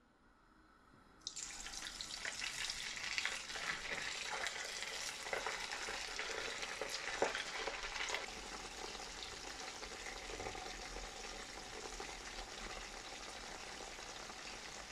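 Cornflour-coated chicken pieces deep-frying in hot oil. A loud sizzle starts suddenly about a second in as the chicken goes in, crackles and pops hard for several seconds, then settles into a steadier, slightly quieter sizzle.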